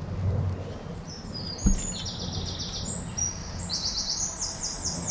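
A songbird singing runs of fast, high repeated notes, from a little under two seconds in, with one dull knock just as it starts.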